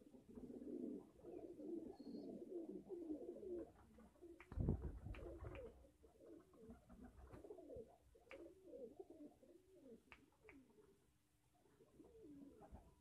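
Domestic pigeons cooing faintly, with a low thump about four and a half seconds in and a few sharp clicks after it.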